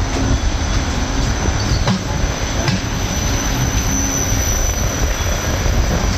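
NS double-deck electric train rolling slowly along the platform: a loud, steady rumble of wheels and running gear with a thin steady high tone over it and a few sharp clicks.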